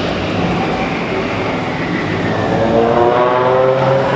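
Car engines and exhausts running in a concrete parking garage as cars drive out; about three seconds in, one engine revs up, its pitch rising.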